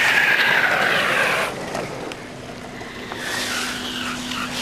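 Wheels rolling fast on asphalt with wind rush. A loud hiss for the first second and a half, then quieter rolling noise with a steady low hum from about two seconds in.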